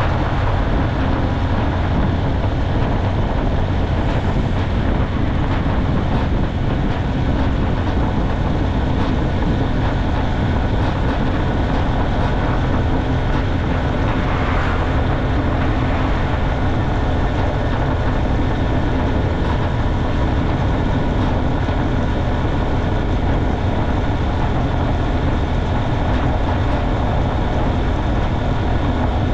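Motorcycle cruising at a steady speed: the engine runs evenly under a continuous rush of wind and road noise.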